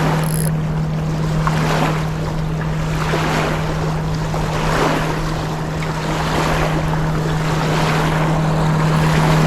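River water washing and lapping, the wash swelling about every second and a half, over a steady low hum.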